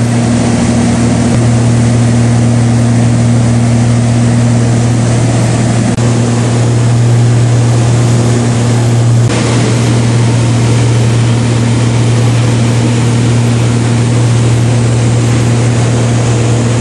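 Engine and propeller of a small private plane running steadily in cruise, heard from inside the cabin as a loud, even drone with a low hum.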